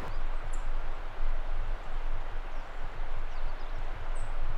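Wind buffeting the microphone: an uneven, gusting rumble, with a faint high chirp or two.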